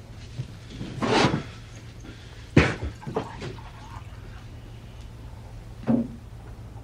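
Objects being handled and set down: a short rush of noise about a second in, a sharp knock about two and a half seconds in followed by two light clicks, and a dull thump near the end, over a low steady hum.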